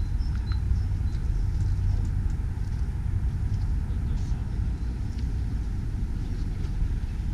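New Holland 175B excavator's diesel engine running with a steady low rumble.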